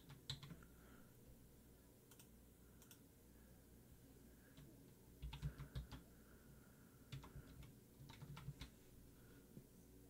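Computer keyboard typing, faint, in short bursts of keystrokes with pauses between.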